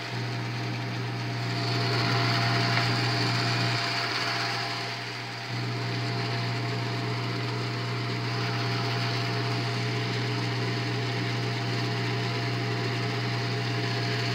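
Bell & Howell 8mm film projector running with its lamp on: a steady mechanical whir over a low hum, which dips in level for a second or two about four seconds in, then picks up again.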